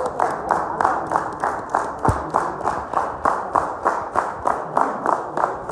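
Audience applauding in a steady rhythm, about four claps a second, with hands clapping close by standing out over the rest. A single dull thump about two seconds in.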